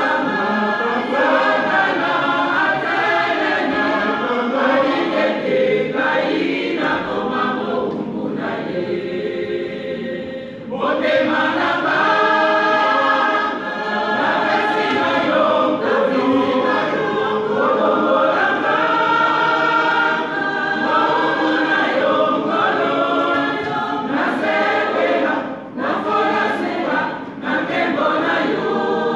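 Choir of men and women singing together, full and continuous. The sound thins out about eight seconds in and swells back to full about two seconds later.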